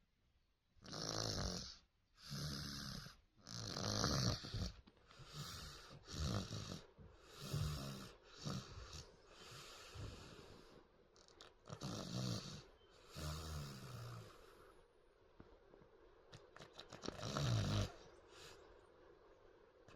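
A sleeping girl snoring: loud, rattling snores about every second or so, falling quieter for a few seconds before one last loud snore near the end.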